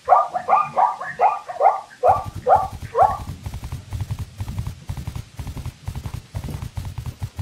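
Zebra barking call: a quick series of about nine yelping barks, each falling in pitch, over the first three seconds. Then a run of rapid low thuds.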